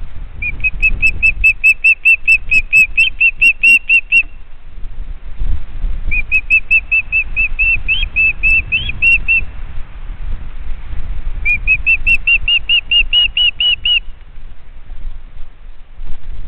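A bird calling: three runs of rapid whistled notes, about five a second, each run lasting a few seconds and rising slightly in pitch toward its end. A low rumble of handling or wind noise lies underneath.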